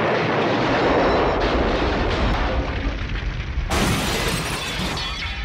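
Film explosion blowing up a phone booth: a heavy rumble slowly dying away, with debris crashing down. A second sharp crash comes about three and a half seconds in, like glass and metal shattering.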